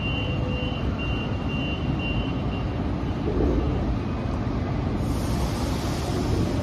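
Train at a station platform: a steady low rumble, with a string of short high beeps over the first two and a half seconds. A hiss comes in about five seconds in.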